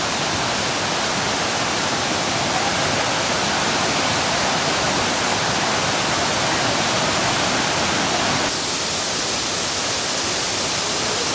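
Waterfall's steady rushing roar of falling water. About eight and a half seconds in, the sound shifts abruptly, losing some of its brightness.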